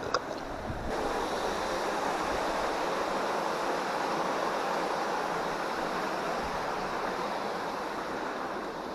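Fast-flowing water rushing steadily through a small inlet channel, getting louder about a second in. A brief sharp click right at the start.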